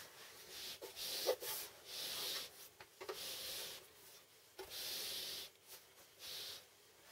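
Homemade spot welding machine slid and shifted across a wooden tabletop: a series of about six short scraping rubs, each under a second, with a light knock about a second in.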